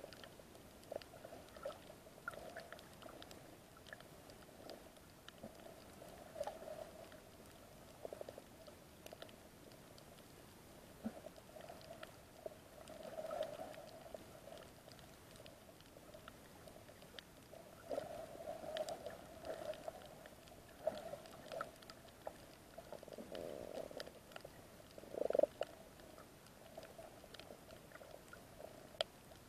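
Muffled underwater sound picked up by a camera in its waterproof housing: faint, irregular gurgling swells with scattered small clicks, the loudest swell about twenty-five seconds in.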